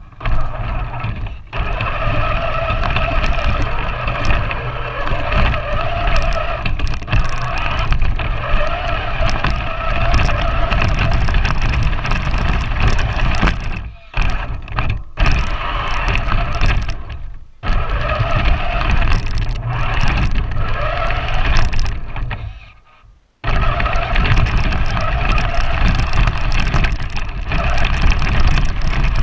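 Large battery-powered RC 4x4 truck's electric motor and gearbox whining as it drives through snow, heard from a camera mounted on the truck, over a heavy low rumble from the chassis. The whine cuts out briefly a few times and dies away fully for about a second roughly three quarters of the way in before starting again.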